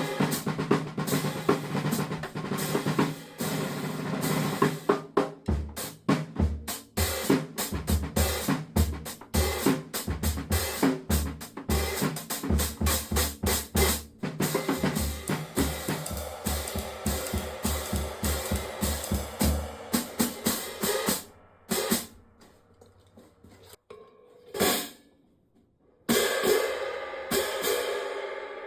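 Drum kit played with a 17-inch hand-made cymbal: bass drum beats in a steady pulse under snare hits and ringing cymbal strikes. Past the middle the playing thins to a few separate strikes with short gaps, then picks up again near the end.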